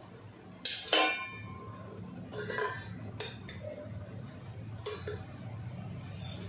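Stainless steel kitchen vessels clinking and clanking as they are handled: one loud ringing clank about a second in, then several lighter clinks and taps, over a low steady hum.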